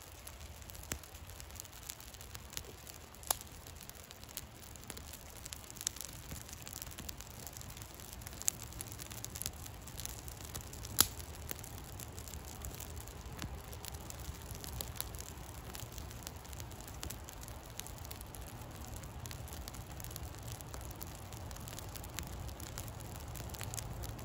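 Small campfire of birch bark and dry twigs crackling as it catches, with scattered sharp pops from the burning sticks over a low steady rumble.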